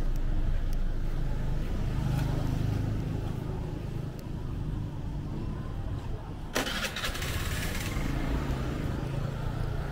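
Street traffic: vehicle engines running close by with a steady low hum, and a sudden hiss about six and a half seconds in that lasts over a second.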